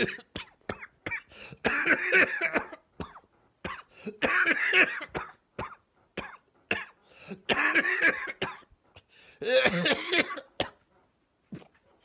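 A man with COVID-19 coughing in fits: four main bouts of several coughs each, a couple of seconds apart, with single short coughs between them.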